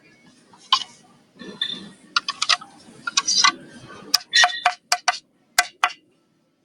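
A quick run of sharp clicks and light taps, about a dozen, some ringing briefly.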